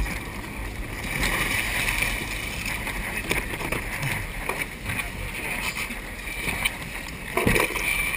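Choppy water splashing and slapping against a kayak and the side of a boat's hull, over a steady low rumble, with a louder knock near the end.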